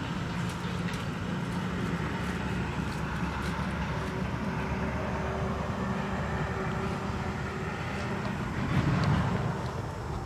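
Small step-through motorcycle engine idling steadily, swelling briefly louder about nine seconds in.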